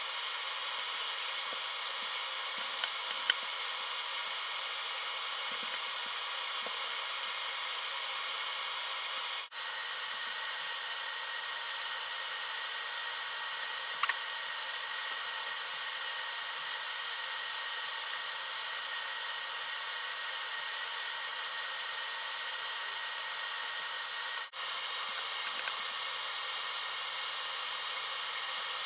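Steady, even hiss like a fan or blower, broken by two brief dropouts about nine and a half and twenty-four and a half seconds in, with a couple of faint clicks.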